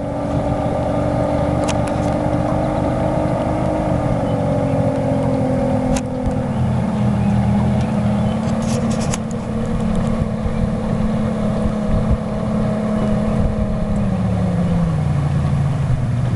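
Motorboat engine running steadily, its pitch stepping down a few times as it slows. A few sharp clicks cut in about 2, 6 and 9 seconds in.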